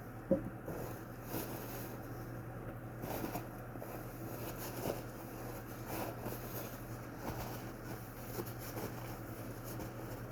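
Soft scattered knocks and rustles of plastic box-fan parts being handled and wiped during cleaning, over a steady low hum.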